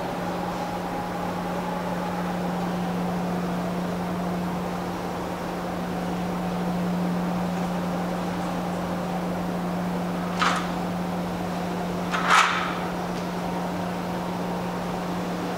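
Steady low mechanical hum of the ferry's machinery heard inside the ship, with a fainter higher tone that drifts slightly over it. Two short clacks stand out about ten and twelve seconds in, the second louder.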